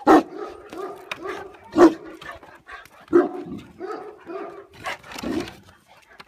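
Tibetan mastiff barking: four loud, deep barks about a second and a half apart, with quieter sounds between them.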